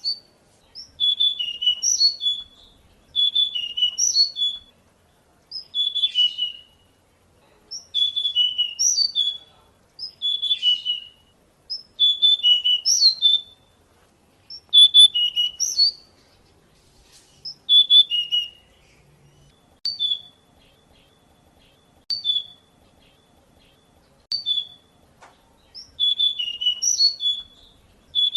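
Male pied bushchat singing: short, quick, high-pitched phrases repeated about every two seconds. For a stretch past the middle the phrases shrink to single brief notes, then the full phrases come back near the end.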